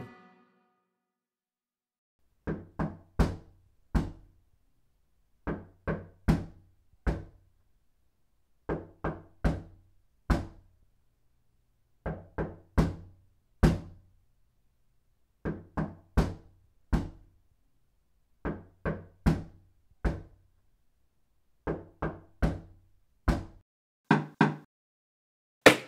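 A fist knocking on a door, starting a couple of seconds in: rounds of about four knocks, repeated every three seconds or so.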